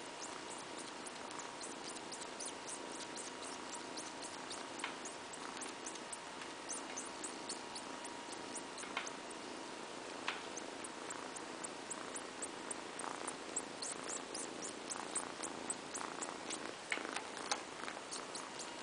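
Kitten purring steadily as it suckles and kneads, with many quick, soft clicks from its sucking.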